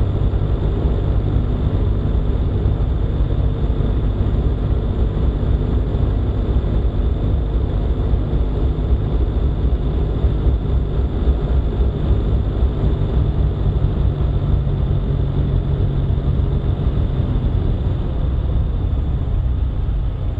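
Steady low rumble of a vehicle driving on a paved road, tyre and engine noise heard from a camera mounted on the moving vehicle, a little quieter in the last couple of seconds.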